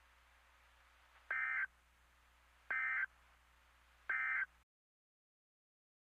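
Three short, identical bursts of EAS SAME digital data tones, each about a third of a second, about a second and a half apart: the end-of-message (EOM) code that closes an Emergency Alert System test. A faint low hum lies under them and stops with the third burst.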